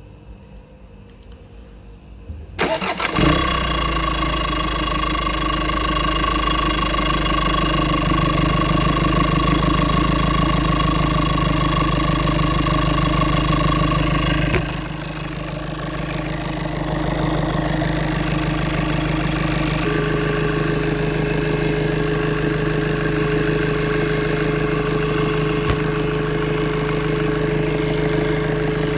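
A turbocharged engine cranks and catches about three seconds in, then runs at a steady idle with a high whistle. The idle drops and the whistle stops about halfway through, and a lower steady whistle comes in near two-thirds. The whistle and vibration are what the owner puts down to turbocharger resonance.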